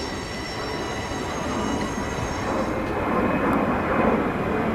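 Freight cars of a BNSF manifest train rolling past, their wheels squealing with a thin, high, steady whine that stops a little over halfway through. The rolling rumble of the cars goes on and grows somewhat louder near the end.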